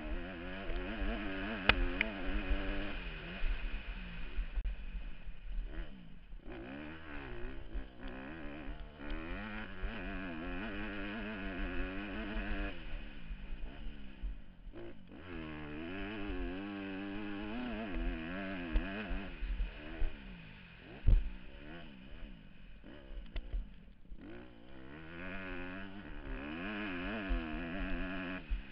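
Motocross bike engine running hard, revving up and falling back over and over as the rider works the throttle and gears, heard from the rider's helmet. Two sharp knocks stand out, a small one about two seconds in and a louder one about 21 seconds in.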